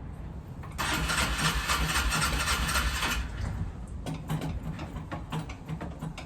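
A Polaris 500 engine being cranked over without catching, in a loud run of about two seconds, then weaker, uneven cranking. It is a no-start: the engine turns over but does not fire, though it has spark and fresh gas and a new air filter.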